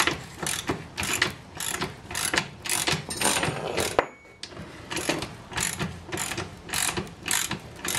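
Ratchet wrench clicking in quick, even strokes, about two or three a second, tightening a 5/16-inch bolt that draws a T-nut down into a plywood floor. The strokes pause briefly about halfway, then resume.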